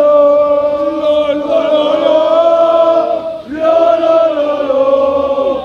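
A crowd of male football supporters chanting a song in unison, their voices holding long notes, with a brief break a little past halfway before the chant starts again.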